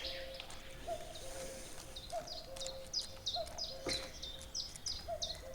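Nightingale singing, a fast run of short, repeated high notes, several a second.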